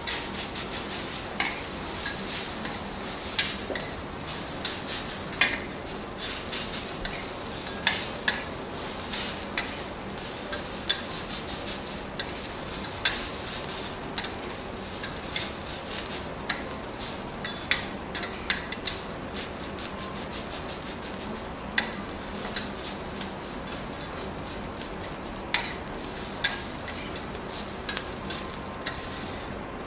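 Fried rice sizzling on a hot steel teppan griddle while two metal spatulas chop and turn it, clicking and scraping against the plate many times over a steady hiss.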